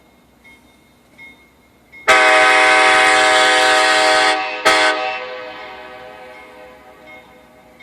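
Nathan K5LA five-chime air horn on a GE U-boat diesel locomotive sounding a long blast of about two seconds, then a short blast, then trailing off slowly.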